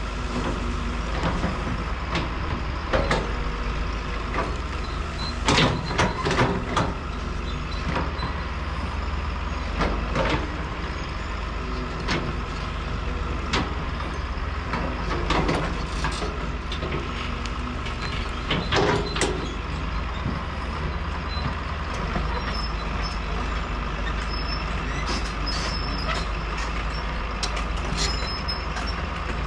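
Caterpillar excavator's diesel engine running steadily under load while the hydraulic arm digs, with sharp clanks and scrapes of the bucket in dirt and roots every few seconds, the loudest a cluster about six seconds in and another near nineteen seconds.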